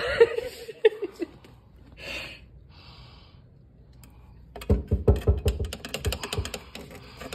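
A sharp knock at the start, then from about five seconds in a fast run of clicks and knocks: metal feeding tongs knocking against a glass reptile terrarium as a toad is lowered in.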